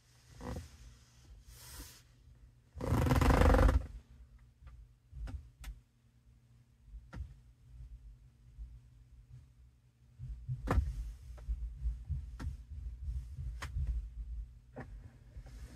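Scattered sharp clicks and a brief burst of noise about three seconds in, then about ten seconds in a low rumble starts and keeps going: a Tesla Model 3's cabin HVAC system starting up under its service-mode HVAC performance self-test.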